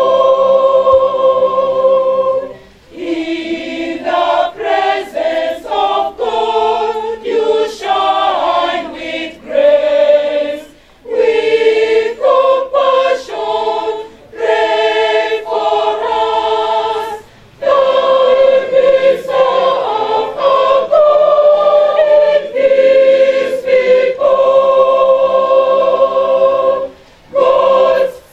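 A large mixed-voice choir singing an anthem in several parts, phrase by phrase, with short breaks between phrases.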